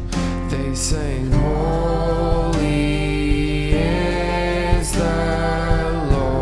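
Live worship band playing a slow song: a male voice singing long held notes that glide between pitches, over strummed acoustic guitar, sustained chords and a slow drum beat.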